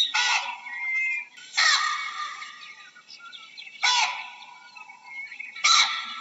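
Baboons calling: four short, harsh, screaming barks about every one and a half to two seconds. Small birds chirp faintly in between.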